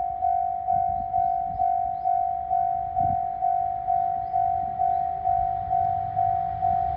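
Japanese railway level-crossing warning bell: an electronic ding at one steady pitch, repeating just over twice a second, each strike fading before the next, over a low rumble.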